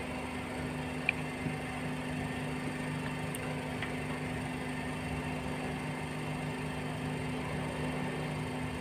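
Steady low machine hum, with a short click about a second in and a fainter one just after.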